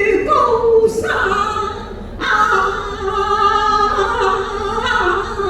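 Cantonese opera singing: a woman's voice holds long, wavering sung notes. A short break comes about two seconds in.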